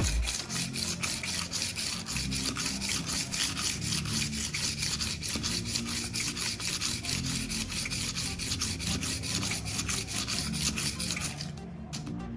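A knife blade scraped against an abrasive sharpening surface in rapid, evenly repeated strokes, a gritty rasping that stops about a second before the end.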